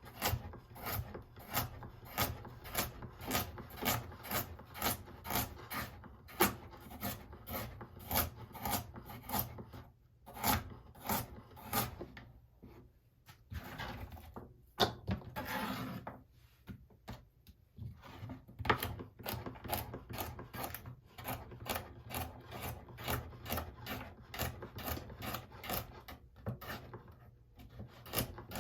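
A carrot being worked by hand with a kitchen blade: quick, evenly repeated scraping strokes, about three a second, with a few short pauses.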